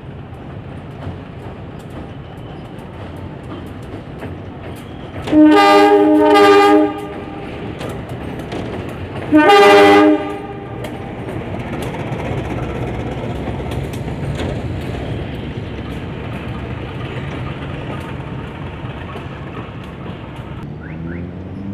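CC 206 diesel-electric locomotive moving slowly through a station, sounding its horn: a long blast with a short break about five seconds in, then a shorter blast about four seconds later. Engine rumble and wheels on rail run underneath, a little louder from about eleven seconds in as it draws alongside.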